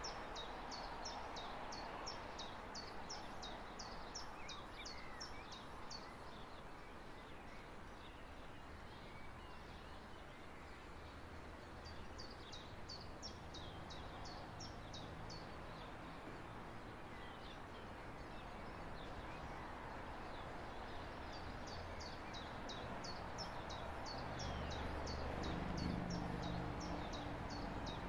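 Small birds singing: rapid runs of short, high, down-slurred chirps in three spells, over a steady low rumble that swells near the end.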